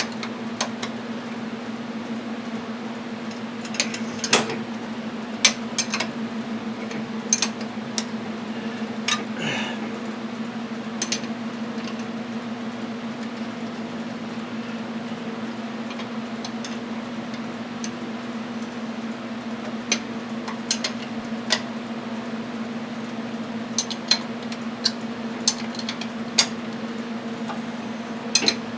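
Metal hand tools clinking and tapping as a 14 mm wrench or socket is worked on mower parts, in irregular sharp clinks, over a steady low hum.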